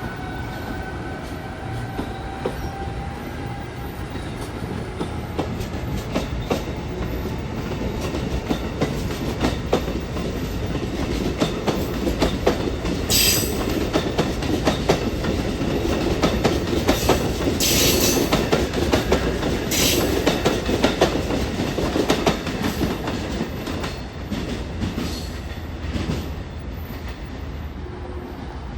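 Amtrak ACS-64 electric locomotive departing: its traction-motor whine rises and fades away in the first few seconds. Then the train rolls past with a steady run of wheel clicks over the rail joints and a few brief high squeals, loudest in the middle, before it eases off near the end.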